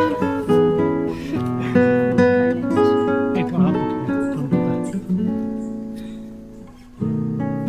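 Background music: acoustic guitar strumming and plucking chords. About five seconds in, a chord is left to ring and fade, and the playing starts again near the end.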